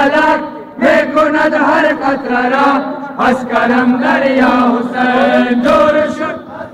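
A crowd of men chanting a noha, a Persian mourning lament for Husayn, in unison. Long held phrases break off and start again about every two to three seconds.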